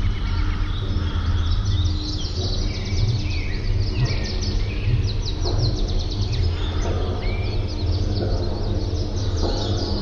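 Jungle soundscape: many birds chirping and calling, some in quick rapid trills, over a steady low hum, with soft sustained background music.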